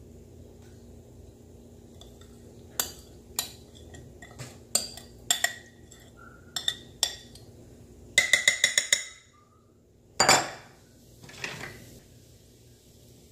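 A metal spoon clinking and scraping against a glass mixing bowl as thick marinade is scraped out, in scattered clicks and then a quick run of taps. One louder clatter follows, then a softer one.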